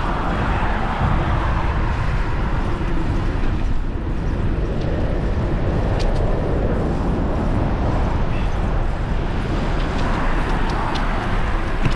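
Wind rushing over the microphone of a moving bicycle, with road traffic going past. The traffic swells and fades near the start and again near the end.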